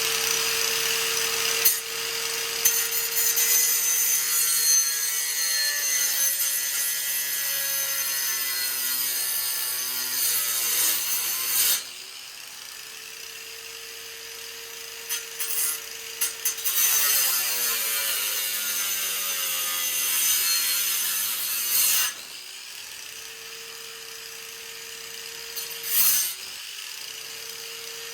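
Electric cutting tool slicing through titanium exhaust tubing. Its motor pitch sinks as it bogs in the cut, and it stops abruptly after about twelve seconds. It makes a second, shorter cut of about five seconds, then gives a brief burst near the end.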